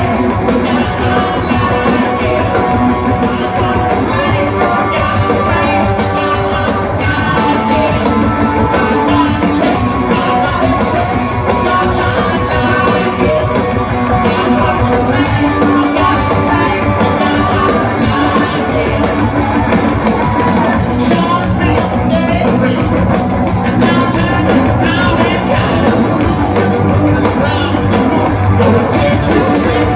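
Rock band playing live: electric guitars, drum kit and a sung lead vocal, loud and continuous, heard from within the crowd.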